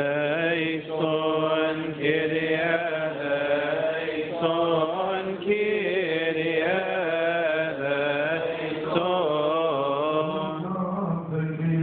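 A male voice chanting a Coptic liturgical hymn into a microphone, in long, wavering melismatic lines with only brief breaths between phrases.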